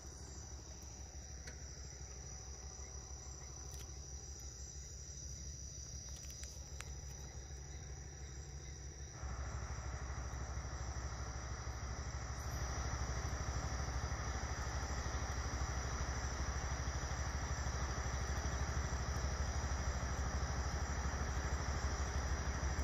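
Crickets and other insects at dusk, making a steady high-pitched drone, over a low rumble that grows louder about nine seconds in and again a few seconds later.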